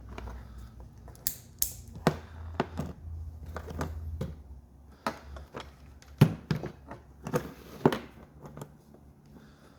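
Scattered clicks and knocks of small plastic parts being handled: a replacement ignition key switch and its wiring connector, with two sharper knocks about six and eight seconds in.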